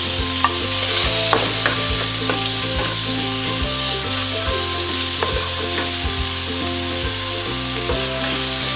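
Chicken pieces sizzling hard in hot oil and garlic in a pan, stirred with a spatula that clicks against the pan now and then.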